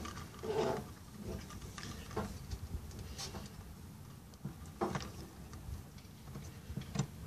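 Light scattered clicks and knocks of a plastic fuel pump module, a Daewoo Matiz's, knocking against the fuel tank's opening as it is eased in and turned into place.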